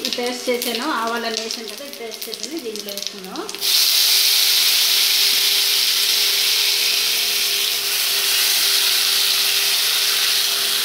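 Cumin seeds frying in hot oil in a wok. About four seconds in, a wet ground spice paste is poured in and the oil sizzles loudly and steadily, a hiss that holds to the end.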